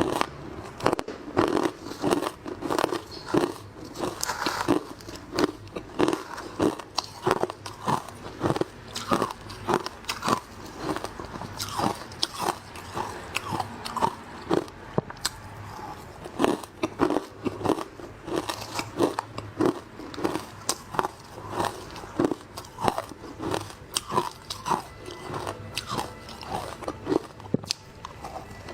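Frozen matcha ice bitten and chewed close to the microphone, with about two crunches a second in a steady run.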